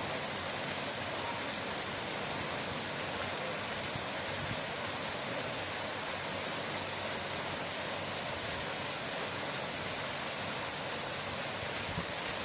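Steady rushing water: an even hiss that holds at one level without breaks.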